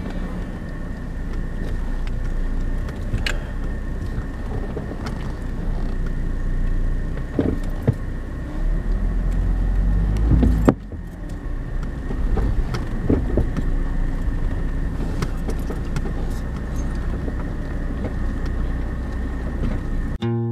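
Car on the move: a steady low road-and-engine rumble with scattered knocks and rattles, dropping briefly about halfway through before running on.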